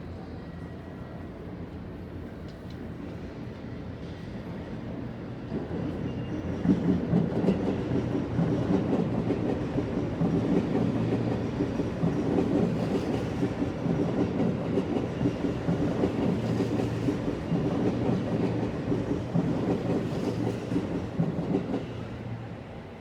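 Seibu Line electric train passing, building up over several seconds, running loud for about fifteen seconds, then falling away quickly near the end.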